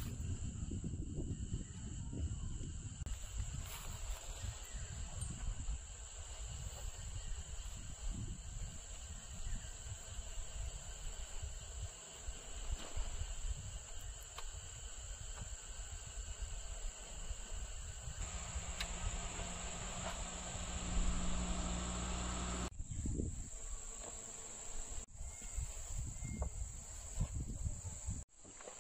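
A steady chorus of crickets and other insects chirring, over a low rumble, with the mix changing abruptly about 18 and 23 seconds in.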